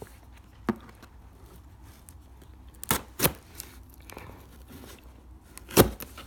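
A knife cutting the seal on a cardboard box, with faint rustling and four sharp clicks and taps of handling, the loudest near the end.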